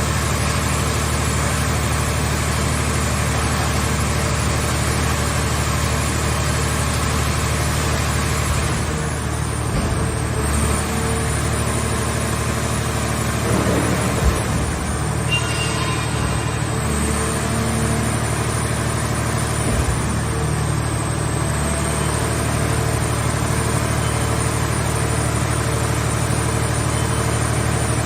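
Hydraulic scrap-car shell baler's power unit running, a steady low hum, with a few short knocks about a third of the way in, near the middle and two-thirds of the way in.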